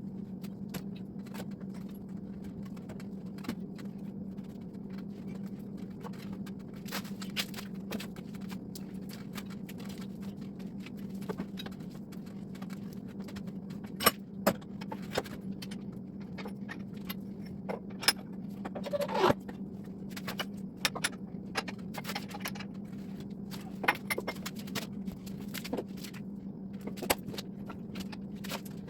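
Hand pipe threader being worked onto the end of a gas pipe: scattered metallic clicks and clinks from the die and handle, with a brief squeak about two-thirds of the way in, over a steady low hum.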